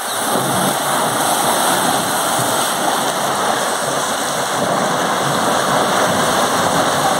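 A hose jet of water spraying onto an elephant's back and splashing into the bathing tank around it: a steady, even rush of spattering water, like heavy rain.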